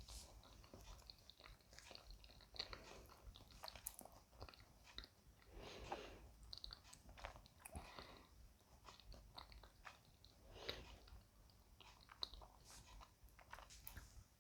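Faint mouth sounds of a person chewing banana: soft wet clicks and smacks, irregular, with a few slightly fuller swells every couple of seconds.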